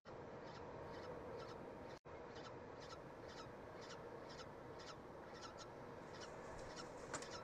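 Peregrine falcon chick peeping: short, high chips about twice a second, faint over a steady hum, with one louder chip near the end.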